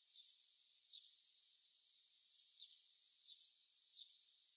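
Five faint, short, high-pitched chirps at uneven intervals from a small animal, with no low sound beneath them.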